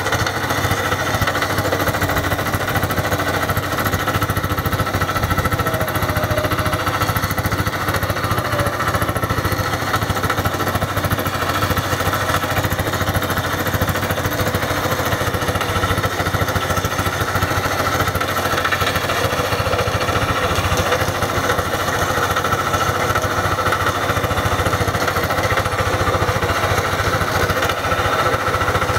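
Kronos Quick two-wheel hand tractor's single-cylinder diesel engine running steadily under load, with a rapid even pulse, as it drives the rotary tiller through dry soil.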